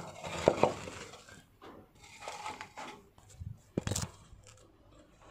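Handling and work noise: scattered knocks, clicks and rustling, with two sharp knocks about half a second in and another about four seconds in.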